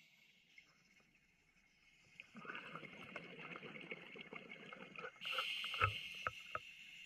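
Scuba regulator breathing underwater: after a short lull, exhaled bubbles crackle and pop for about three seconds, then the hiss of an inhalation through the regulator takes over, with a few small knocks in it.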